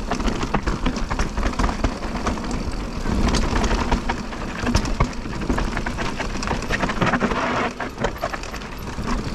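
Electric mountain bike ridden down a rough, rocky, badly worn trail: the tyres and frame rattle and clatter over the rocks in a constant stream of sharp knocks, over a steady rushing noise.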